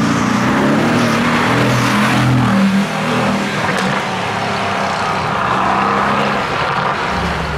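Mercedes-AMG GT's twin-turbo V8 under hard acceleration, the engine note climbing through the revs with a short dip about three seconds in, then climbing again as the car pulls away.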